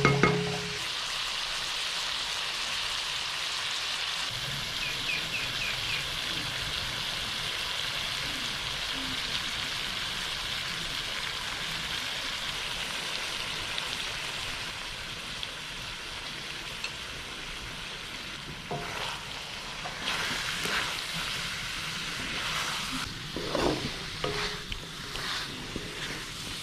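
Chicken sukka sizzling as it fries in oil in a pan, a steady hiss. Toward the end come a few knocks and scrapes of a spatula stirring it.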